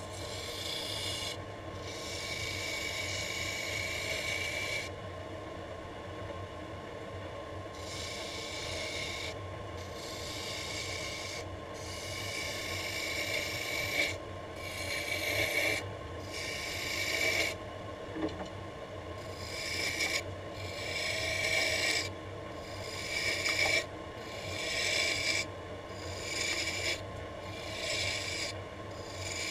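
Wood lathe running with a steady motor hum while a hand-held turning tool cuts a spinning laminated wood blank in repeated passes, each pass a hiss of shavings that starts and stops. From about halfway the passes come shorter and quicker, roughly one a second.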